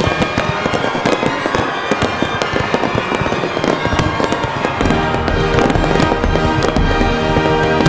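Fireworks going off in rapid succession, a dense run of bangs and crackles several per second, with music playing underneath that comes through more strongly about five seconds in.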